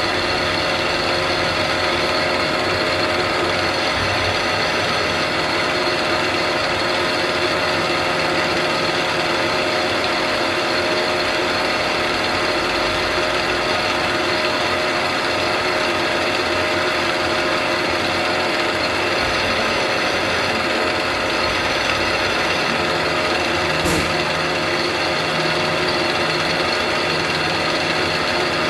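CNC lathe running a C-axis and Y-axis engraving cut with a live tool, a steady machine whine made of many held tones. One sharp click comes near the end.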